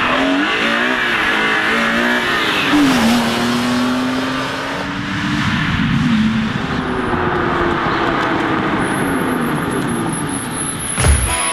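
BMW M3 race car engine revving hard as it drives by, its note climbing and dropping back several times as it accelerates and shifts. Music with a beat starts near the end.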